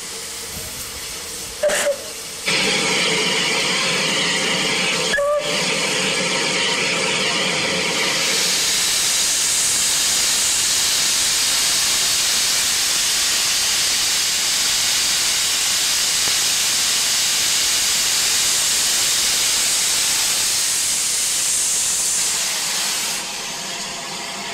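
Steam hissing loudly and steadily from the cylinder drain cocks of unrebuilt Bulleid Battle of Britain class Pacific 34072 as it stands, with no exhaust beats. A short sharp sound comes just before the hiss starts and another about five seconds in; the hiss turns higher-pitched about eight seconds in and eases near the end.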